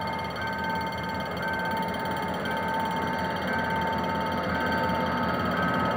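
Level-crossing warning signal sounding steady electronic tones, the higher one briefly cut off about once a second. Under it is the low rumble of an approaching GM GT22CW-2 diesel-electric locomotive, growing louder.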